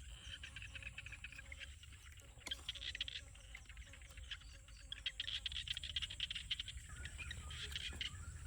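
Insects chirring in uneven bursts, with many small scattered clicks and a low rumble underneath.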